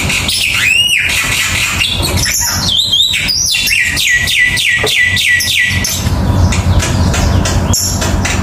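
A songbird singing: a few swooping chirps, then a quick run of about eight falling notes a little past the middle, over a steady low rumble with scattered clicks.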